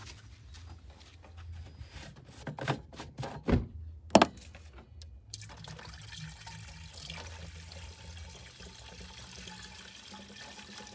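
Liquid pouring in a steady stream from a plastic watering can into a car's coolant expansion tank, starting about halfway through. Before the pour there are a few sharp knocks and clatters.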